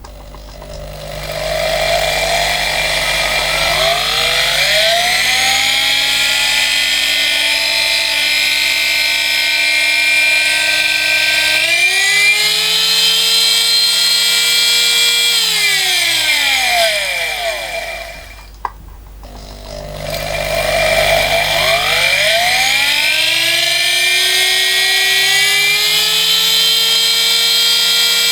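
Flexible-shaft die grinder's motor, switched by foot pedal, whining as it spins up and runs steadily, then speeds up a little. It winds down to a stop, starts again and spins back up to speed, and is winding down again at the end: a test run after boring out the parts so they fit together.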